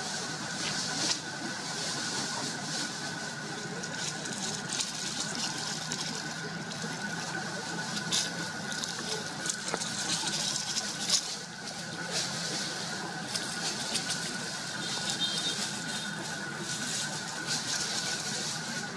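Steady outdoor background of hiss and hum with a constant high tone, broken by scattered light crackles and rustles.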